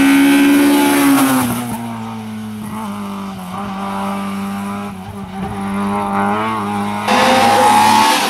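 Rally car engines at high revs, one car after another: the first engine's note drops about a second in as it backs off, then holds a steady lower note. A different car's engine cuts in suddenly about seven seconds in.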